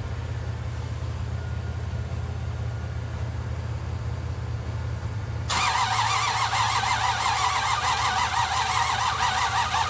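A steady low hum, then about halfway through a 1966 Buick Riviera's starter motor begins cranking the V8, its whine rising and falling evenly with each compression stroke, without the engine catching: a crank-no-start condition.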